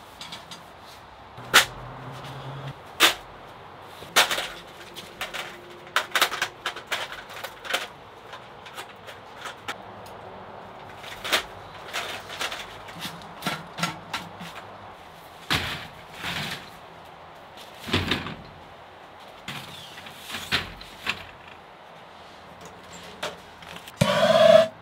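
Separate sharp metal clanks and knocks as a Winnerwell wood stove is assembled: its chimney pipe sections and folding side shelves are set in place. Near the end a handheld gas torch starts, loud and rushing, aimed into the firebox to light the wood.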